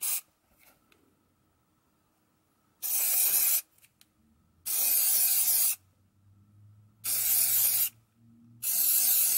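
Aerosol can of Rust-Oleum FlexiDip rubber coating spraying in four bursts of hiss, each about a second long, the first about three seconds in.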